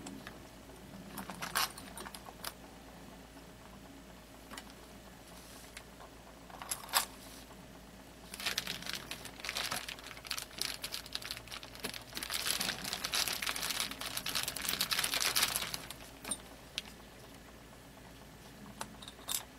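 Plastic crinkling as small bolts, washers and bagged parts are handled with gloved hands, with a few light clicks. The crinkling comes in two stretches, about eight to ten seconds in and again from about twelve to nearly sixteen seconds.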